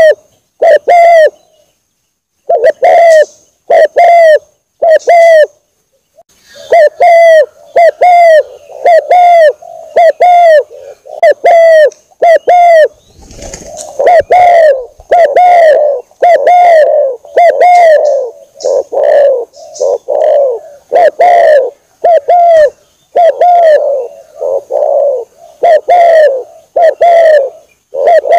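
Spotted dove (tekukur) cooing, loud and repeated: short hoarse coo notes about one a second, with a couple of brief pauses.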